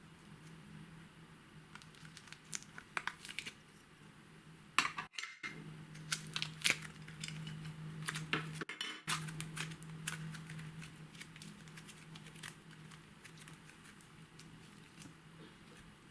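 Scattered light clicks, taps and scrapes of a utensil against a container while slime and makeup are being mixed, over a steady low hum. The sound cuts out completely for a moment twice, about five and nine seconds in.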